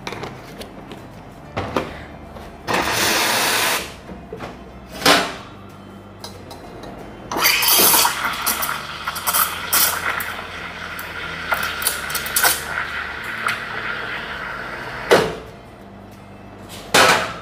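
Espresso machine steam wand: a short burst of steam about three seconds in as the wand is purged, then milk steaming in a stainless steel pitcher with a steady hiss for about eight seconds. It ends with a sharp knock, and a second short burst of steam comes near the end.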